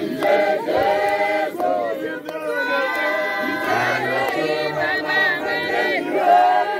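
A group of voices singing together, loud and overlapping, with some voices calling out over the song.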